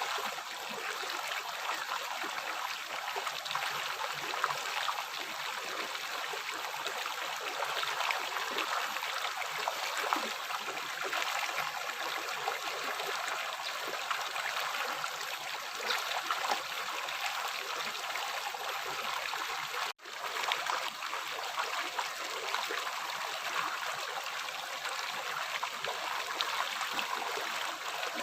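River water flowing over rocks: a steady, even rushing and babbling, with little deep rumble. The sound drops out for an instant about two-thirds of the way through, then goes on unchanged.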